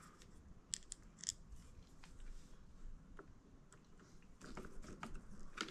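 Faint, scattered clicks of a hand screwdriver and a small screw being handled and driven into the scooter's headlight mount: a few sharp ticks about a second in, more small clicks near the end.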